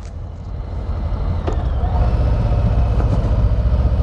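Harley-Davidson Street Bob's Milwaukee-Eight V-twin running on the road, a low pulsing rumble that grows louder about a second and a half in.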